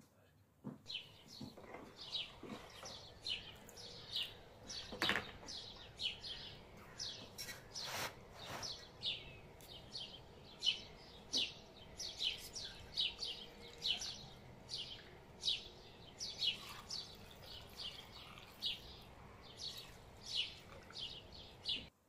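A bird chirping over and over, short high chirps about two to three a second, over a faint steady background hiss. The chirping cuts off suddenly near the end.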